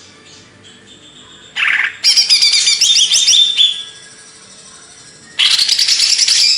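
Cucak ijo (green leafbird) singing: faint chirps, then two loud bursts of fast, varied high notes, the first about a second and a half in lasting some two seconds, the second near the end.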